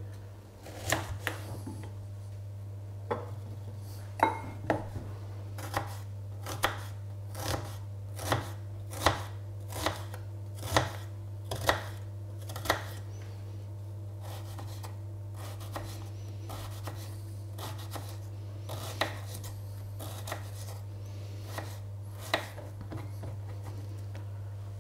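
Kitchen knife chopping a red onion on a wooden cutting board: sharp knocks of the blade on the board, about one a second for the first half, then fewer and more scattered. A steady low hum runs underneath.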